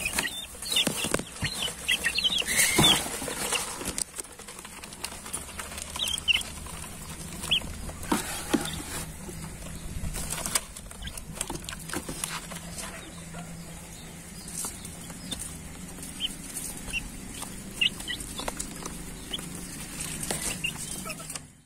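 Domestic chickens clucking, with short high chirps now and then and scattered clicks and rustles as they move about in the feed.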